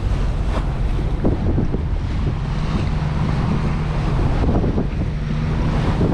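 Small excursion motor boat under way: its engine runs with a steady low hum beneath water rushing past the hull, and wind buffets the microphone.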